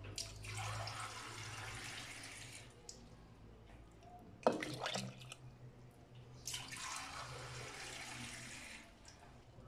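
Water poured from a drinking glass into a pot of dry semolina mix, twice, each pour lasting a couple of seconds. A single sharp knock comes about halfway, between the pours.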